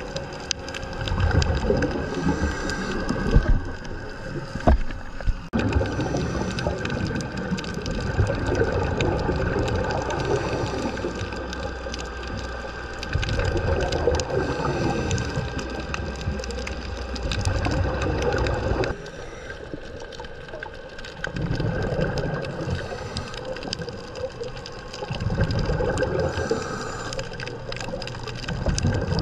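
Scuba diver's breathing heard underwater: bursts of exhaled bubbles from the regulator every few seconds, with quieter gaps between breaths.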